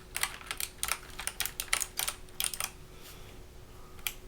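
Keystrokes on a Hexgears Supernova mechanical keyboard, a child typing in uneven, unhurried clicks, then a pause of about a second and one last key near the end.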